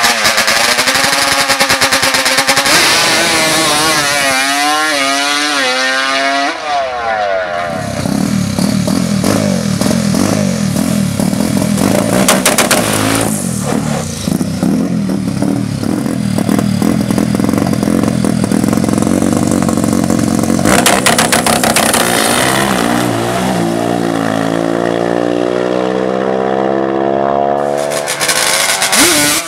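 Racing ATV engines revving: the pitch rises and falls sharply several times over the first few seconds, settles into a lower, rougher run through the middle, and climbs steadily again near the end.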